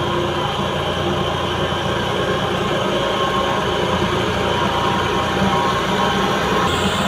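Skid steer with a vibratory roller attachment running steadily, engine and vibrating drum giving a constant low mechanical drone.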